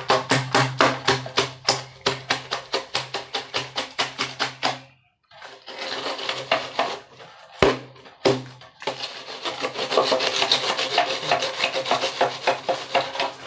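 A straight-edge screed board being sawn back and forth across a wet cement floor: quick, even rasping strokes about five a second, a brief pause about five seconds in, then a denser scraping as the board is dragged on.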